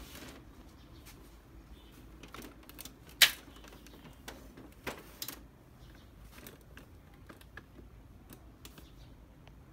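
Scattered light clicks and taps from a laser printer being switched on and handled, with one sharp click about three seconds in and a few smaller ones around five seconds.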